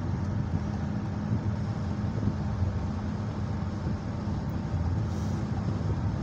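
Steady road and engine rumble heard inside the cabin of a vehicle moving at highway speed, with a faint steady hum under it.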